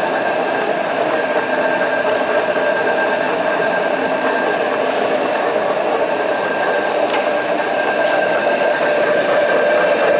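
Jones & Shipman 1310 universal cylindrical grinder running, a steady mechanical whine with an even background hum.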